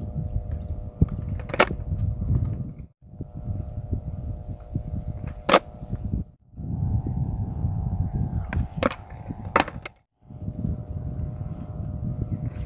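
Skateboard tail popping and the deck slapping down on asphalt: a few sharp cracks several seconds apart, over a steady low rumble. The sound cuts out briefly three times.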